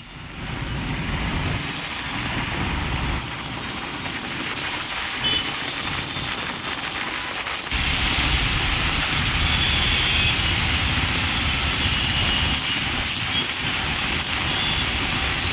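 Heavy rain pouring onto a flooded road, with traffic driving through the water and a low rumble of engines. About eight seconds in the sound changes abruptly and gets louder and brighter.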